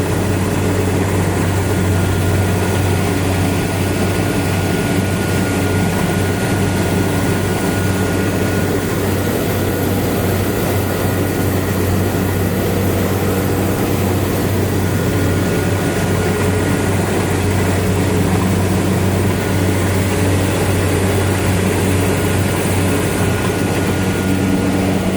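Kubota tracked combine harvester running steadily while harvesting rice: a continuous engine drone with a thin, steady high whine above it.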